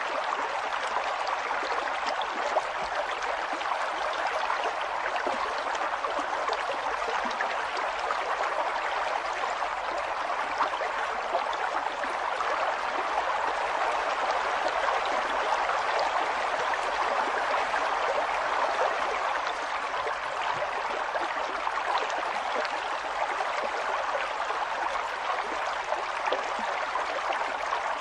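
River water flowing steadily over rocks: a continuous rushing with fine splashes and gurgles.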